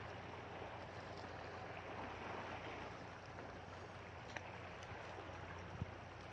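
Sea washing against a rocky shore, a steady hiss that swells and ebbs, with a faint low hum beneath. Two short sharp clicks near the end, the second louder.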